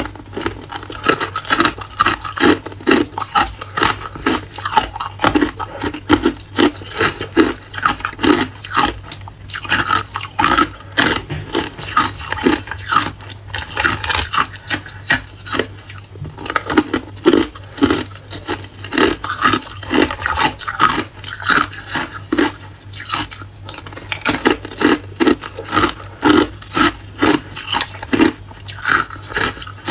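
Hard, clear ice cubes crunched between the teeth, close to the microphone: a quick, steady run of crunches, a few a second, without a break.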